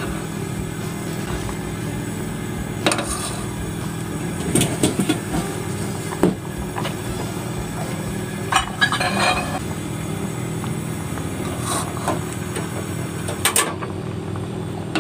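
Metal ladle stirring a stainless steel pot of simmering coconut milk, knocking and scraping against the pot a handful of times over a steady low hum.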